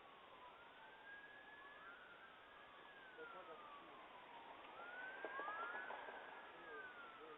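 Faint emergency-vehicle siren in a wail pattern, sliding slowly up and down in pitch about every two and a half seconds and growing a little louder about five seconds in, picked up by a doorbell camera's microphone.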